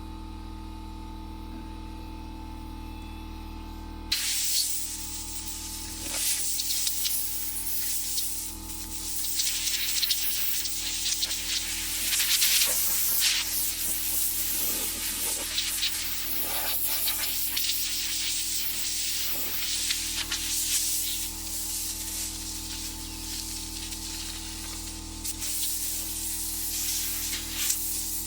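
Compressed-air blow gun hissing as it blasts sawdust off a wooden table saw, starting about four seconds in and going in surges, louder and softer as the nozzle moves.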